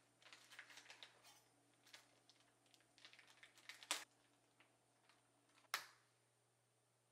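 Thin plastic bag crinkling softly as raw chicken breast is worked out of it, then two sharp knocks about four and six seconds in.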